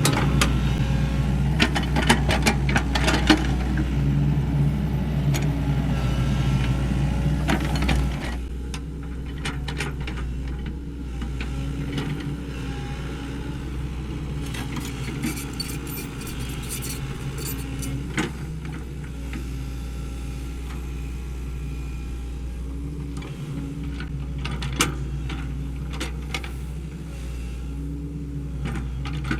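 Sany SY75C excavator's diesel engine running steadily, louder for the first eight seconds and then settling to a lower level, with scattered metallic clinks and rattles.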